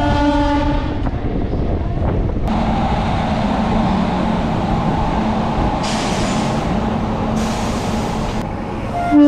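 Suburban electric train running along a station platform, heard from inside the coach as a steady rumble. A train horn sounds briefly at the start and again, louder, near the end, and two spells of hiss about a second long come in the second half.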